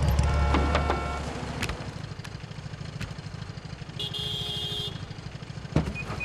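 Motorcycle engine running as the bike pulls up, its low rumble dying down after about a second to a softer run. A short steady tone sounds about four seconds in, and a single knock comes near the end.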